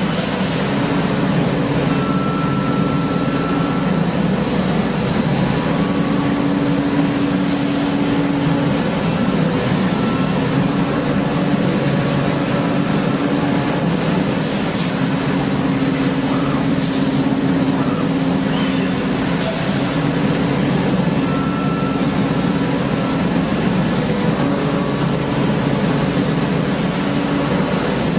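Steady industrial machinery noise with a hum that swells and fades every few seconds and a higher whine that comes and goes.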